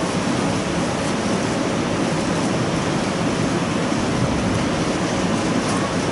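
A congregation leafing through their Bibles to find the announced passage, many pages turning at once in a steady rustling hiss.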